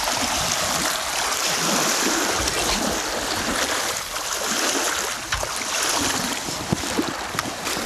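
Waves splashing steadily against the reservoir bank, with gusts of wind buffeting the microphone.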